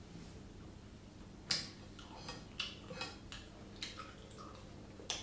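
A metal spoon clicking against a ceramic plate several times as food is scooped and eaten, the sharpest click about a second and a half in.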